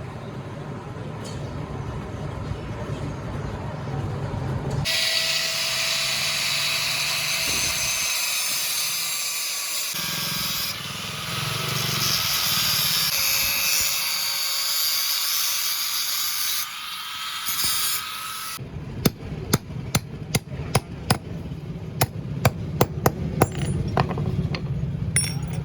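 A power grinder runs against steel with a hissing whine for about fourteen seconds. Then comes a run of sharp hammer blows on metal, about two a second.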